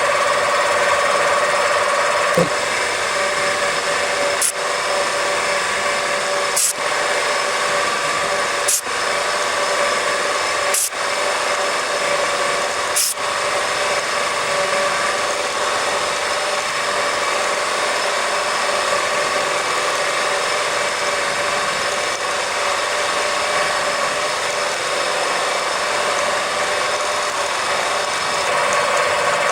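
Small metal lathe running at steady speed while a small twist drill in the tailstock pecks a long thin hole into the end of a spinning steel bar, the motor giving an even whine. In the first half there are about five brief sharp sounds roughly two seconds apart.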